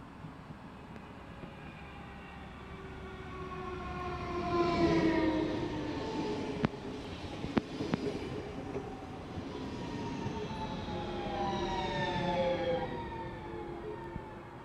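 Vy electric multiple-unit train running through the station past the platform, its motor whine sliding down in pitch as each car goes by, twice. Two sharp clicks from the wheels are heard in the middle of the pass.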